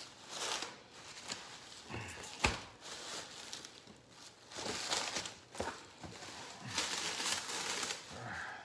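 Bubble wrap and plastic packaging crinkling and rustling in several bursts as it is pulled off a box by hand, with one sharp click about two and a half seconds in.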